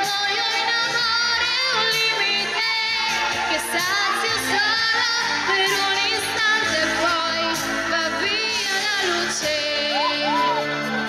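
A woman singing an Italian pop ballad live into a handheld microphone over a backing track, in wavering held notes.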